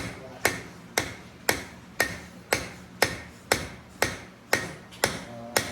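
Steady hammer taps on metal, about two a second, each a sharp strike with a short ring, driving a tool into a slot to split apart a part of a Mercury Force 70 outboard engine.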